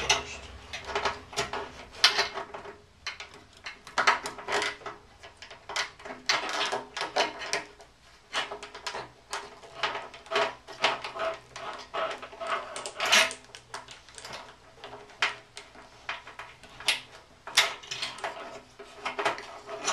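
Irregular clicks, knocks and light rattles of a Harley-Davidson Road King's fuel pump assembly being fed by hand into the fuel tank opening, its plastic and metal parts bumping against the tank.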